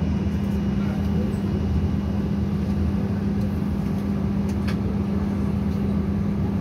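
Steady cabin noise inside a jet airliner moving on the ground before take-off: a constant low rumble with one unchanging hum over it.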